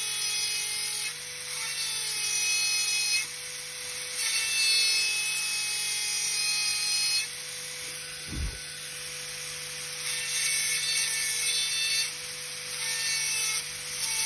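High-speed dental handpiece spinning a round bur as it cuts a cavity into a typodont's upper front tooth, extending the preparation sideways. Its steady whine shifts in tone in stretches of one to a few seconds as the bur is pressed on and eased off the tooth. A brief low bump comes about eight seconds in.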